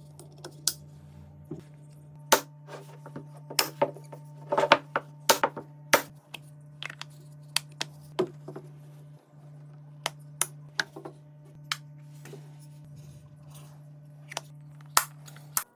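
Irregular light clicks and knocks of small wooden box parts being handled, with a steady low hum underneath.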